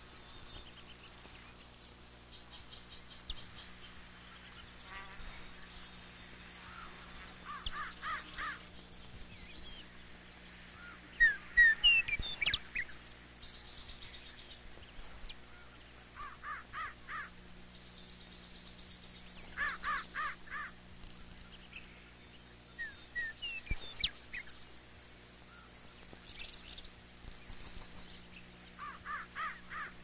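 Wild animal calls: short chattering trains of quick repeated notes recurring every few seconds, with sharp high chirps between them, the loudest about a third of the way in. A faint steady low hum lies underneath.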